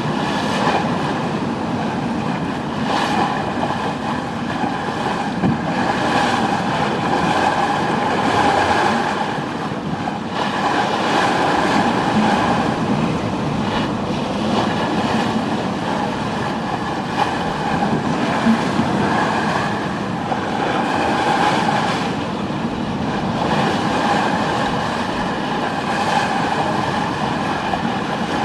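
Sounds aboard a two-masted wooden schooner under way: a steady rumble and rush with a hum running through it, swelling and easing every few seconds.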